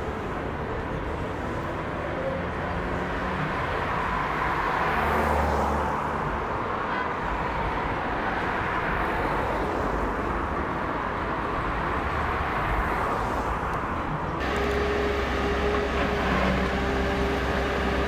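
City street traffic: cars driving slowly past with a steady traffic hum, one car passing closer about five seconds in. About fourteen seconds in, the sound cuts abruptly to a heavy machinery engine running steadily close by, a low rumble with a steady hum over it.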